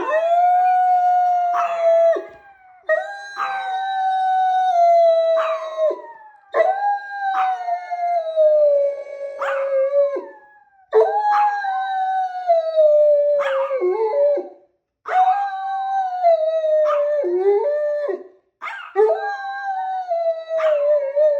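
Dogs howling in a run of long howls, each lasting two to three seconds and sliding slowly down in pitch. Short, sharp yips break in between the howls.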